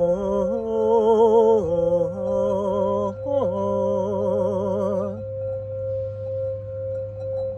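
Crystal singing bowl rubbed with its wand, holding one steady ringing tone at about 528 Hz. Over it a woman sings long wordless notes with a wide vibrato, sliding down between them. For the last two seconds or so the bowl rings on alone.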